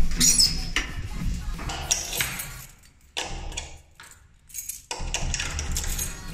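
A bunch of keys jangling and clicking as a key is worked into a door lock: short rattles and clicks, broken by two brief quiet gaps.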